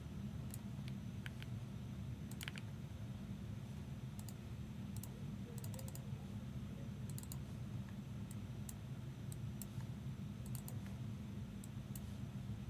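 Scattered clicks of a computer keyboard and mouse, single taps and short runs, over a steady low hum.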